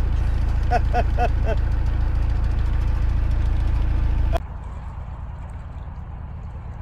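Narrowboat engine running steadily at cruising speed, a loud low chugging close by, with four brief high calls about a second in. About four and a half seconds in, it cuts to the same engine heard more faintly as the boat passes along the canal.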